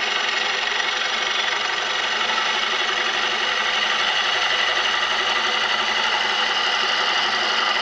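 Ellsworth bowl gouge taking a facing cut across the top of a bowl spinning on a Oneway lathe: a steady, even hiss of the cut with the lathe running.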